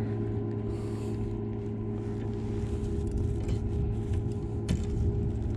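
Boat motor running steadily at idle, a low, even hum, with a few light clicks and one sharper knock near the end.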